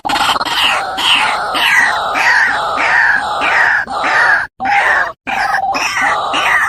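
White-breasted waterhen (ruak-ruak) giving its loud, harsh, repeated croaking call, about two to three notes a second, broken twice by a brief sudden dropout in the second half.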